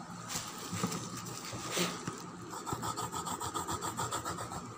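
Quick back-and-forth rubbing on drawing paper over pencil marks. The strokes settle into an even rhythm about halfway through.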